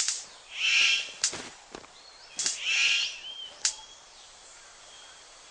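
A superb bird of paradise gives two harsh calls about two seconds apart, each followed by a sharp click, with a few thin chirps from other birds. After that only faint rainforest background remains.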